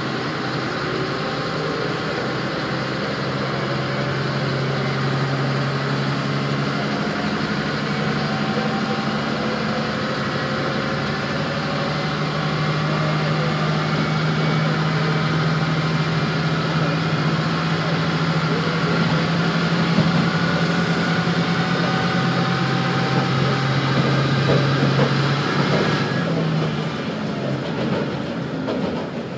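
Diesel railcar running under power, heard from inside the carriage: a steady low engine drone with a slowly rising whine above it. Near the end the higher whine stops and the engine note changes.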